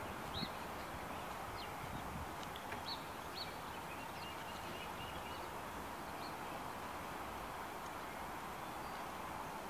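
Steady outdoor background noise with a few faint bird chirps in the first few seconds.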